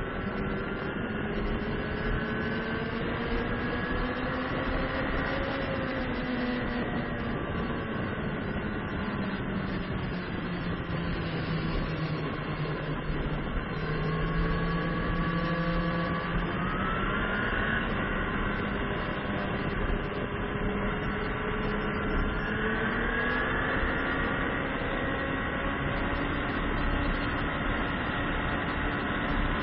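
Sport motorcycle engine heard onboard at track speed under a constant rush of wind and road noise. Its note falls and climbs as the rider rolls off and opens the throttle through the corners, rising a little past halfway and again near the end.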